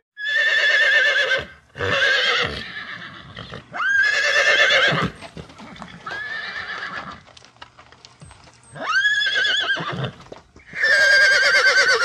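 Horse whinnying repeatedly: six high, quavering neighs about a second long each, separated by short pauses, with faint clicks in the gaps.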